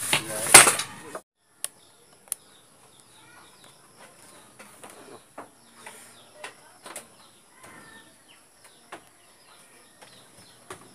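Loud rustling handling noise for about a second that stops abruptly, then a quiet background with scattered faint clicks and faint bird chirps.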